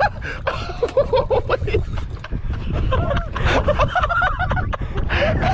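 Indistinct excited voices of men, with yelling and laughter, over a steady low rumble.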